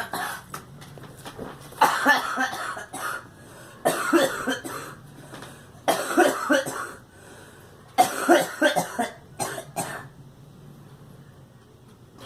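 A girl coughing in repeated fits: a run of several quick coughs about every two seconds, four fits in a row, with a couple of smaller coughs trailing off near the end.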